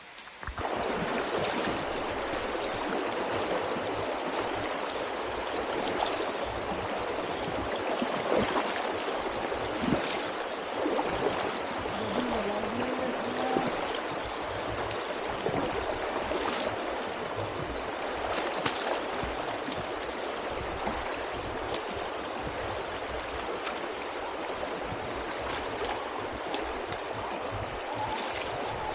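Shallow river rushing and gurgling over rocks, heard up close, with irregular splashes of feet wading through the water.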